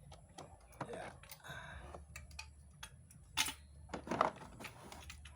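Irregular light clicks and clatter of a 2-ton car jack and its parts being handled, with two louder sharp knocks in the second half.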